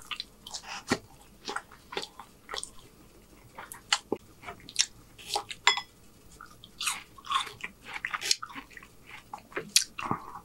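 Close-miked chewing and mouth smacks of a person eating, a run of short, irregular clicks and wet mouth sounds.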